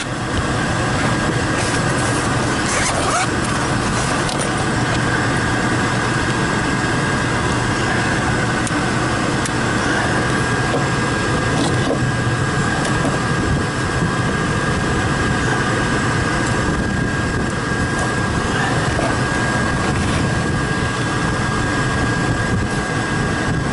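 Combustion air inducer motor of a Lennox GCS16 gas rooftop unit running steadily, with a steady hum and a thin high whine. The burners are not lighting: no spark, no heat. A few clicks and knocks sound in the first few seconds.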